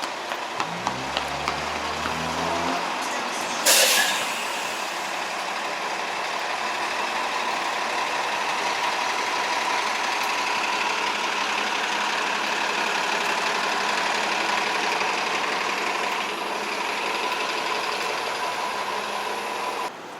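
Heavy vehicle in city traffic: a few regular clacks, then a motor or engine rising in pitch as it pulls away. A short, sharp blast of air-brake hiss comes about four seconds in, then a steady rumble of traffic noise that cuts off at the end.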